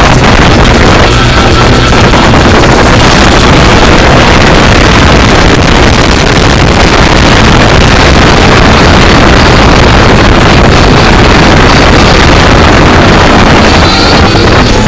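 Car engine, wind and tyre noise heard from inside the cabin while the car laps a race circuit. The sound is loud and steady enough to overload the microphone.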